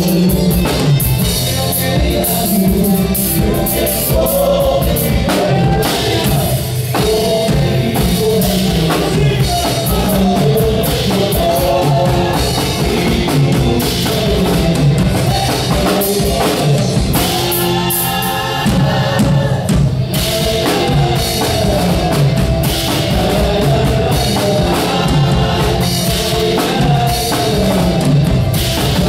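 Live Andean folk band: several male voices singing over strummed acoustic guitars, bass and a drum kit beat.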